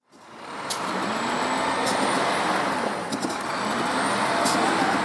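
Motor vehicle noise: a steady rush with a faint wavering low engine tone and a few sharp clicks, fading in at the start.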